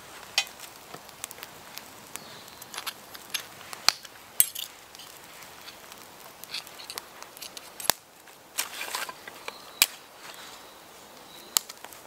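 Newly lit campfire of twigs and kindling crackling, with sharp, irregular pops and snaps, while more sticks are fed onto it.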